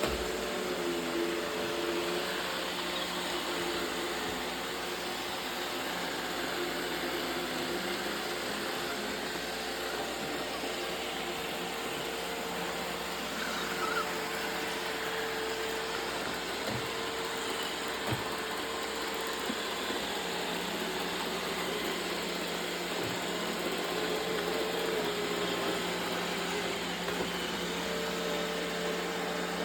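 Roomba robot vacuum running: a steady whirring hiss with a wavering whine over a low hum, and a few faint knocks.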